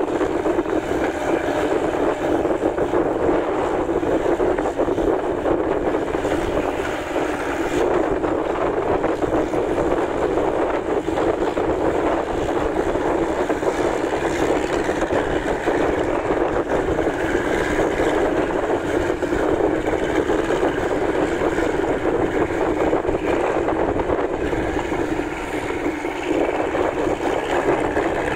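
Massey Ferguson half-track tractor's engine running steadily under load as it pulls a rotary tiller through flooded paddy mud.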